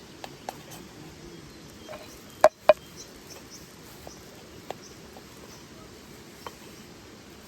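Scattered sharp clicks over a steady rush of flowing water, with two loud clicks close together about two and a half seconds in.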